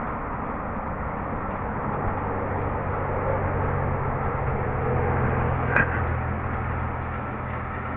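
Roadside mowing machine's engine running steadily as a low hum over a constant rumble, strengthening about two seconds in, with one sharp click near six seconds.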